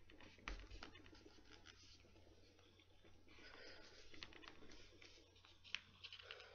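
Faint rustling and scratching of paper with scattered small clicks, as a paper guard is folded over a magazine's spine and pressed along the crease with the fingertips.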